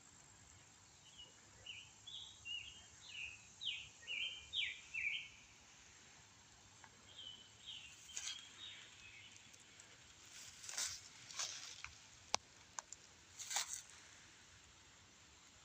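A bird singing faintly, a quick run of about a dozen short chirps in the first few seconds and a shorter run about halfway through, over steady outdoor hiss. Several sharp crackles come in the second half.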